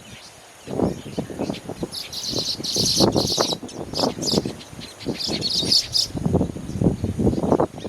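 Weaver birds chattering in bursts of high, buzzy calls, with an uneven low rumble underneath.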